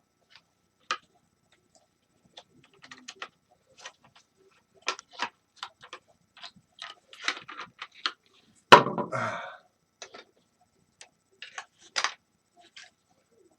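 Scattered small clicks and taps of plastic and metal parts being handled while a space heater is dismantled on a workbench, with one louder clatter about nine seconds in.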